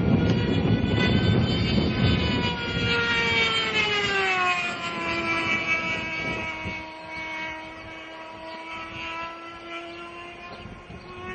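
Ducted-fan RC jet with a two-stroke Nelson .91 glow engine flying past at high speed: its high-pitched whine drops in pitch about four seconds in as it passes, then holds the lower pitch and fades as it flies away.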